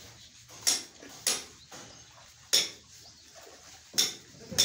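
Sharp taps or clinks, about five at uneven intervals of half a second to a second and a half.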